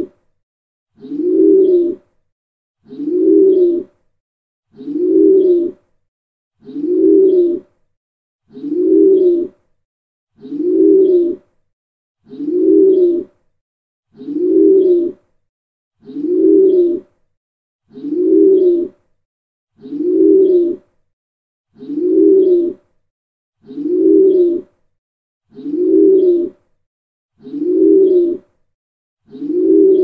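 Pigeon cooing: the same low coo, about a second long, repeated evenly roughly every two seconds with silence between.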